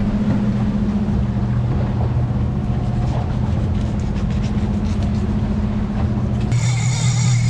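A boat's engine running steadily while the boat is underway. About six and a half seconds in, the sound changes abruptly to a different steady engine note with a high whine over it.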